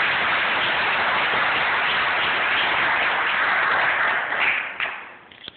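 Audience applauding steadily, then dying away over the last second or so into a few scattered claps.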